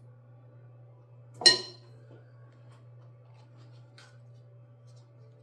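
A single sharp, ringing clink of a utensil striking hard kitchenware about a second and a half in, then a light click near the end, over a steady low hum.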